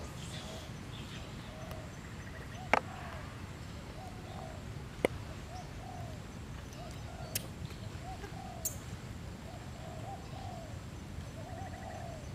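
Soft, short cooing calls repeating every second or so, each rising and falling, over a steady low rumble, with a few sharp clicks, two of them loud.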